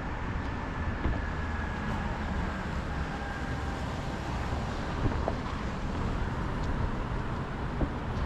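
Steady road traffic rumble, with a few short clicks.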